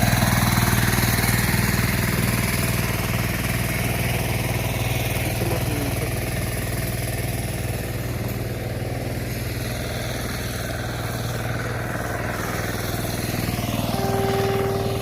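Engine of a kuliglig, a two-wheeled hand tractor, running steadily as it works the field.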